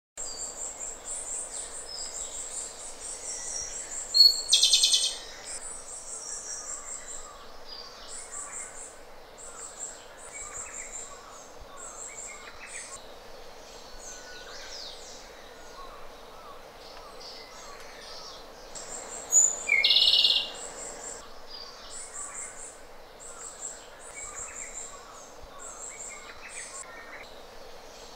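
Japanese robin singing twice, about four seconds in and again about twenty seconds in: each song is a single high introductory note followed by a loud, fast trill. Between the songs come many short, very high chirps over a steady background hiss.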